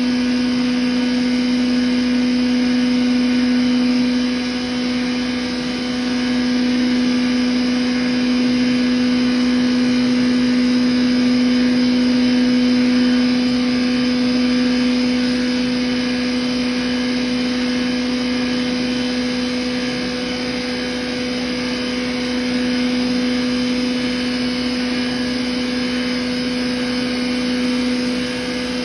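A 10 HP rice husk grinder with its blower running steadily: a loud, even hum with a steady whine over a rushing noise.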